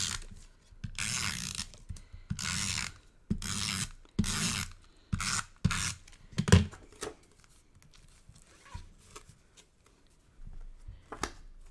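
Adhesive tape runner drawn along the back of a cardstock panel in short strokes, each a brief ratcheting rasp, about seven in the first seven seconds. Fainter paper handling follows, with one more short rub near the end.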